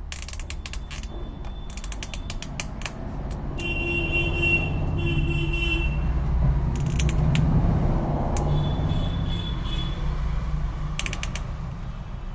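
A spectacle frame's rim clicking and creaking as a cut bifocal lens is pressed into it by hand. It gives short squeaks a few seconds in and again past the middle as the lens edge rubs into the groove, with a low rumble underneath.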